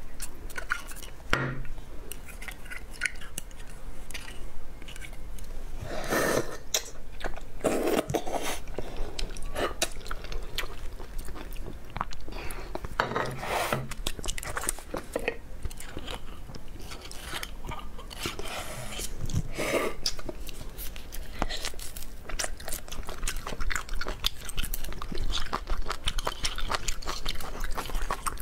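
Close-miked chewing and crunching of food in the mouth, with many short irregular clicks and bites.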